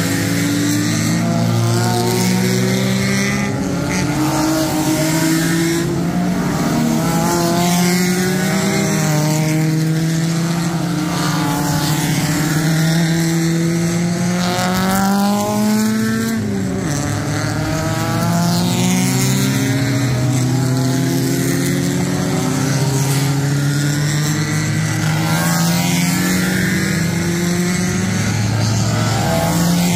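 Engines of several small-displacement vintage racing cars running hard at once. Each one's pitch climbs and then drops again and again as the cars accelerate and shift gears.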